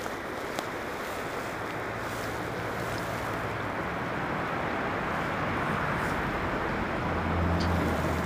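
Steady rush of a fast-flowing river with wind on the microphone, slowly growing louder. A low hum comes in near the end, with a few faint clicks.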